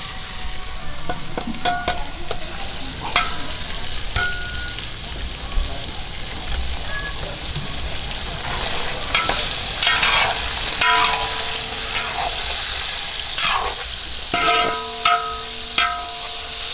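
Sliced meat sizzling in hot oil in a large metal wok, stirred with a metal spatula that scrapes and clinks against the pan over and over, some strokes leaving a short ringing tone.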